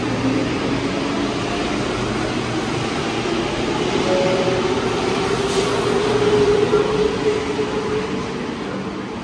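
Rubber-tyred Santiago Metro Line 1 train pulling away from the platform. It makes a steady rumble with a motor whine that rises in pitch as it gathers speed, then eases off near the end.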